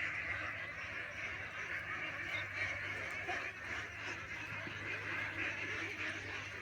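Birds calling, a steady dense chatter.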